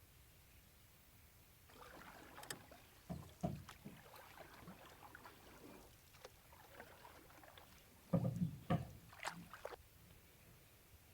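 Hollow knocks and thumps of a canoe and paddle being handled on the water, with soft sloshing. There are a couple of knocks about three seconds in and a louder cluster of thumps about eight seconds in.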